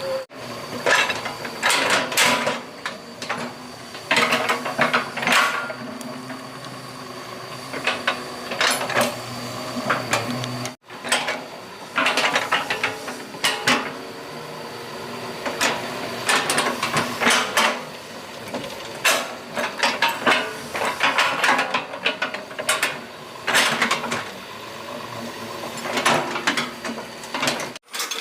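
Doosan 140 excavator at work: its engine runs steadily under a string of metallic clanks and rattles.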